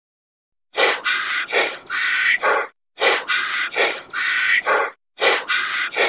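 Parrot squawking: harsh, loud calls in quick groups of three or four, each group cut off by a short pause, starting under a second in.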